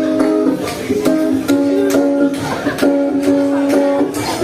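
Live band playing an instrumental passage: held chords with a steady beat of percussion hits, a bit more than two a second.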